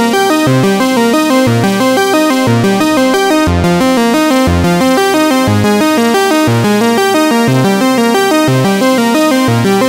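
Background music: a quick run of pitched notes over a bass line that changes about once a second, at a steady loud level.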